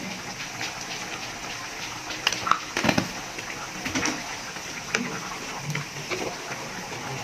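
A pot of menudo stew simmering, a steady bubbling hiss, with a few sharp knocks and scrapes of a wooden spatula stirring it in the metal pot from about two to five seconds in.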